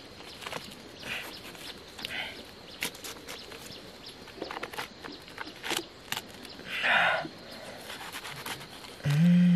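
Large knife cutting through a watermelon's rind and prying the fruit apart: a run of small sharp clicks and crackles, with a brief louder rasp about seven seconds in. Near the end comes a short, loud, low voice-like sound that rises and falls in pitch, the loudest thing here.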